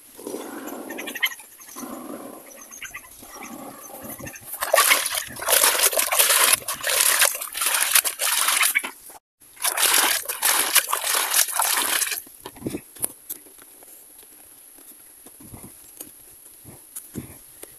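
Liquid being poured from a plastic scoop and splashing into a plastic bucket, in two long pours that each stop suddenly.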